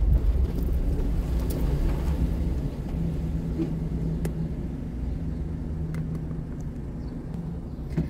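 Car engine and road rumble heard from inside the cabin while driving, a low steady hum that grows gradually quieter toward the end.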